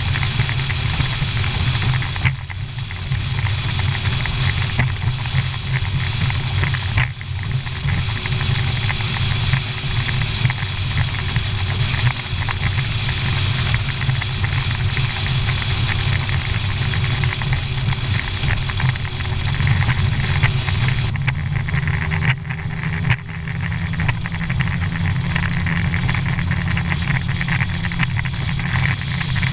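Mercury outboard on a bass boat running at speed across rough, choppy water, with a heavy rumble of wind buffeting the microphone and the hull slapping the waves now and then.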